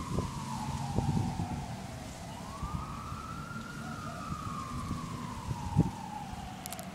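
Fire truck siren wailing at a distance in slow rising and falling sweeps, about four to five seconds per cycle, over a low rumble, with a short thump near the end.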